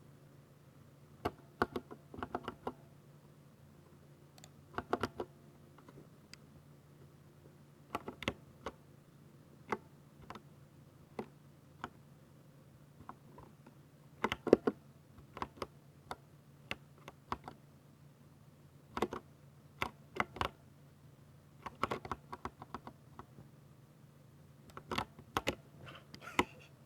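Typing on a 60% mechanical keyboard with Ducky silver switches: short bursts of keystroke clicks and clacks in irregular clusters, with pauses between them.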